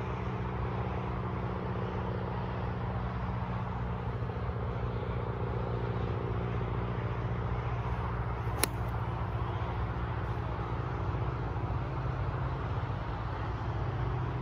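A golf ball struck off the tee with a 3-hybrid: a single sharp click just past halfway, over a steady low background rumble.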